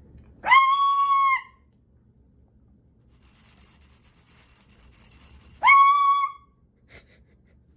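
Small dog yelling for its food: two loud, high-pitched yells, each rising sharply and then held for about a second or less, one just after the start and one about five seconds later.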